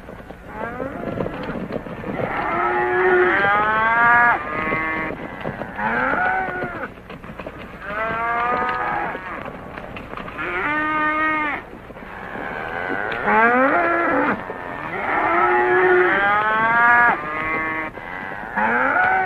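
A herd of cattle being driven, mooing over and over, the calls overlapping with hardly a pause. It is heard on a thin old film soundtrack with a low hum beneath.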